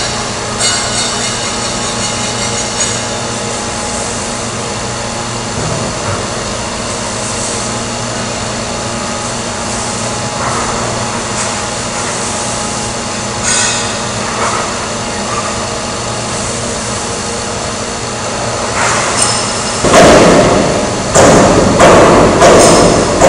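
Sheet-metal guillotine shear running with a steady motor hum and a few isolated knocks. Near the end come loud metallic clanks and thuds as steel plate is cut and handled at the machine.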